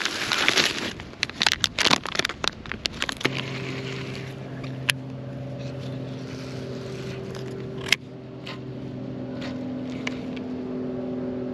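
A plastic soft-bait package crinkling and rattling as it is opened. About three seconds in, a steady motor hum of several tones starts suddenly and carries on, broken by a couple of sharp clicks.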